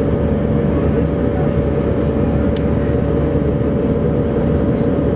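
Cabin noise of an Airbus A319 airliner in flight: steady jet engine and airflow noise with a constant hum tone running through it. There is one faint tick about two and a half seconds in.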